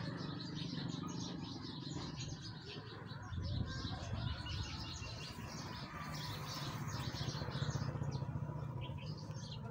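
Birds chirping continually: many short, high-pitched chirps overlapping one another.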